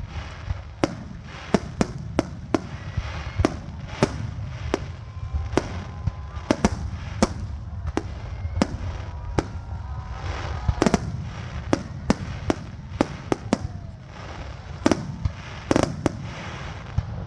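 Fireworks going off: a rapid, irregular run of sharp bangs, about one or two a second, over a steady low rumble.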